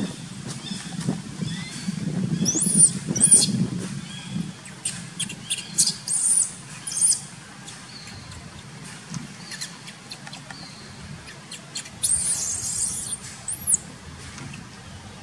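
Newborn long-tailed macaque giving short, very high-pitched squeals in little clusters: a few about two to three seconds in, more around six to seven seconds, and again near the end.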